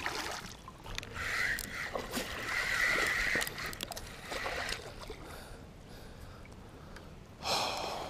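Creek water splashing and sloshing: a smallmouth bass hitting the water as it is released, then a hooked one thrashing at the surface, with a short louder splash near the end as it is swung out.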